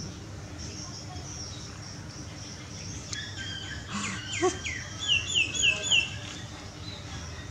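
Birds chirping: faint high chirps at first, then a burst of short falling chirps in the middle, ending in four quick chirps about three a second.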